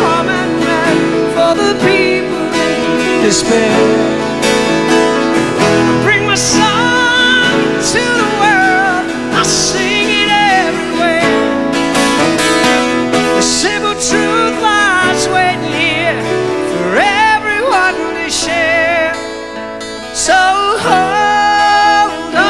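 Live solo acoustic song: a strummed twelve-string acoustic guitar with a man singing over it.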